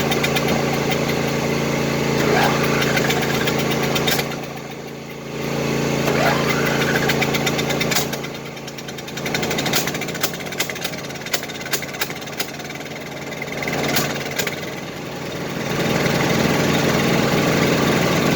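Craftsman lawn tractor engine running just after its whole engine was pressure-washed and is still wet and steaming. The engine note drops off and picks back up three times, with a run of sharp clicks during the middle stretch.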